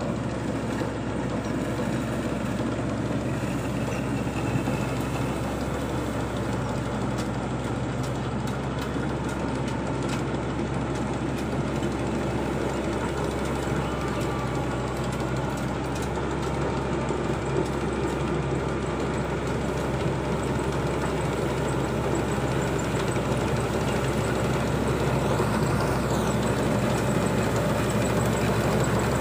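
Combine harvester's engine and threshing machinery running steadily while it cuts paddy, growing slowly louder in the last third as it comes closer.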